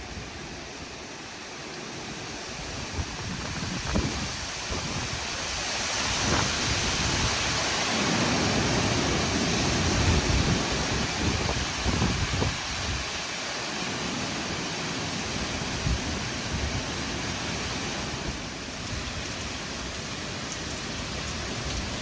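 Tropical-storm wind and rain: a steady rushing hiss that swells to its loudest about halfway through and then eases a little, with gusts buffeting the microphone.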